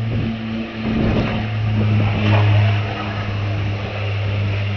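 An engine running steadily with a low, even hum, swelling a little louder around the middle.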